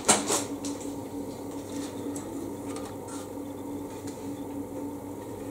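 A short crinkle of a cellophane bag and plastic sprue at the very start, then a steady low hum with a few faint clicks of plastic model-kit sprues being handled.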